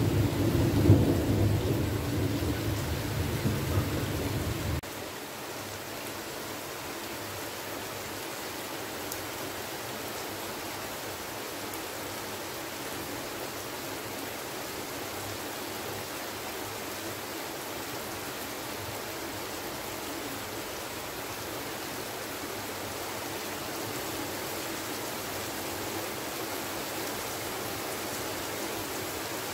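Heavy rain falling steadily, a dense even hiss. For about the first five seconds a low rumble of thunder sits under it, then cuts off suddenly.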